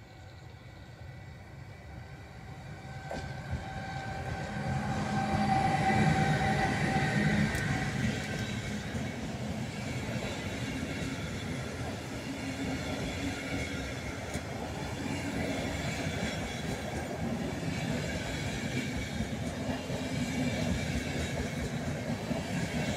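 Siemens Vectron electric locomotive hauling a passenger train past: the sound builds from faint to loudest about six seconds in, with a steady hum as the locomotive goes by. The wheels of the passenger coaches then rumble past on the rails at an even level.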